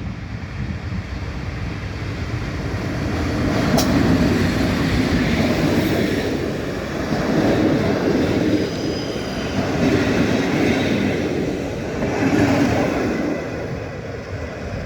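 Train passing over a level crossing, its rumble building a few seconds in and then swelling and easing several times as the cars go by, with a sharp click about four seconds in.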